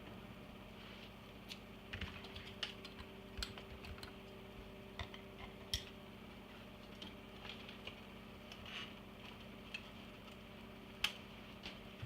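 Scattered light clicks and taps of hands and a tool working on computer parts, over a faint steady low hum.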